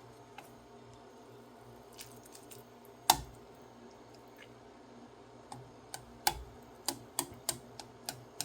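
A cooking utensil clicking and knocking against a pot while breaking up ramen noodles: one loud knock about three seconds in, then a quick run of about eight lighter clicks near the end.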